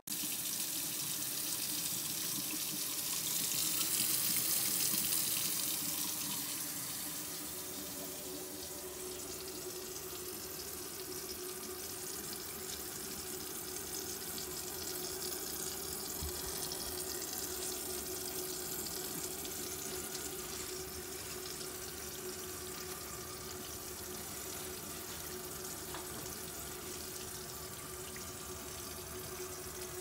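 Tap water running steadily into a kitchen sink and down the drain pipes, heard from the cabinet below. It is strongest for the first few seconds, then settles to an even flow with a faint steady tone.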